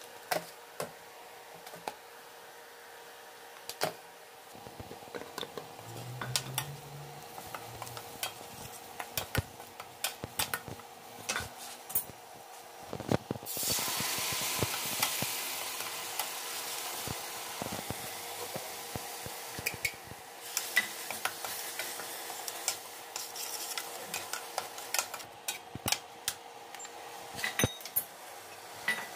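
Metal spoon and spatula clinking and scraping against steel vessels while stirring masala in a steel kadhai. About halfway through, a loud sizzle starts suddenly as the masala hits the hot oil, then slowly dies down while the stirring clinks go on.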